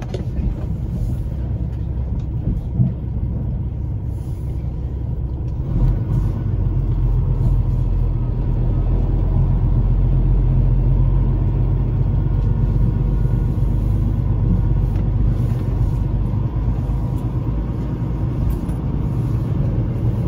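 Semi-truck's diesel engine running, heard from inside the cab while the truck drives. The engine gets louder about six seconds in as it pulls harder, then holds steady.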